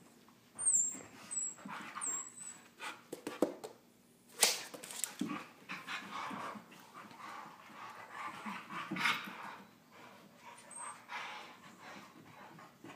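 Dogs play-wrestling, a Siberian husky puppy among them: irregular yips, short barks and whines, with a few high squeaks in the first couple of seconds. A sharp knock about four and a half seconds in is the loudest sound.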